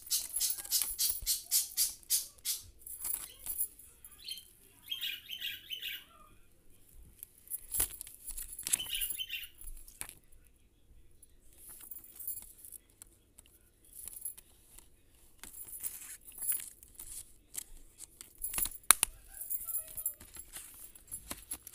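A plastic Blu-ray case and its paper insert being handled: clusters of quick clicks, taps and rustling, with a few short pauses and one sharper click near the end.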